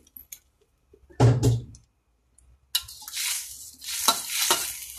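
A metal spatula scraping and stirring shredded jackfruit in a wok, with sizzling, in a run of strokes that starts about three seconds in. Earlier there are a few light clicks and a dull knock about a second in.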